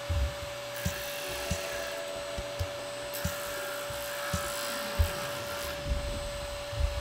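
Mini disc sander running with a steady motor hum while a small plastic part is pressed against the spinning sanding disc, the grit rasping on it, with a few light knocks as the part is handled.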